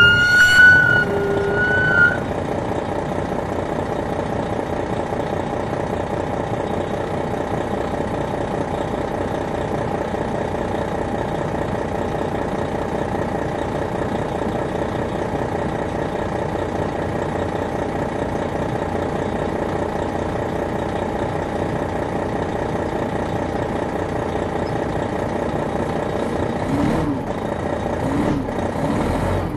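The Detroit Diesel Series 60 diesel engine of a 2001 MCI D4000 coach heard from on board, running at a steady, unchanging speed with an even drone. A loud high tone sounds over it for about the first two seconds.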